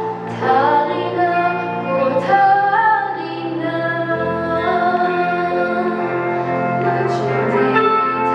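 A young woman singing solo into a microphone, holding notes and gliding between them, over steady sustained instrumental accompaniment.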